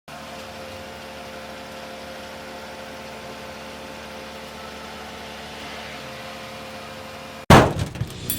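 Steady machine hum with a few constant tones, like a running engine. It cuts off suddenly near the end and gives way to a loud burst of crashing sounds.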